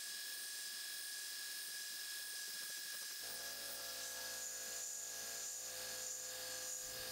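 Converted Grizzly G0704 CNC mill clearing a pocket in an aluminum block with a quarter-inch four-flute carbide end mill at 3000 RPM, a steady faint machine whine. About three seconds in, a lower hum with several steady tones joins, and it drops away shortly before the end.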